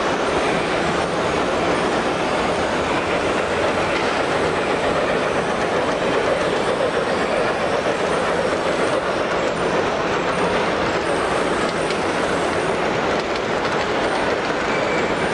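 O-scale model freight train rolling along the track, a steady rolling noise of metal wheels on rail.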